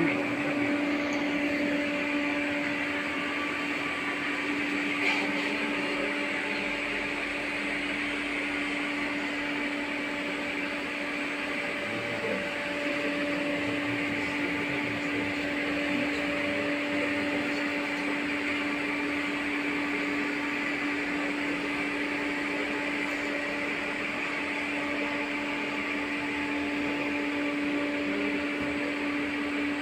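Steady electrical hum with a held whining tone inside an LVS-86 tram car's passenger cabin.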